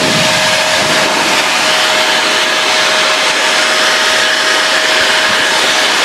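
Electric blower running steadily, pushing air out of a wide flexible hose: a loud, even rush of air with a steady mid-pitched whine.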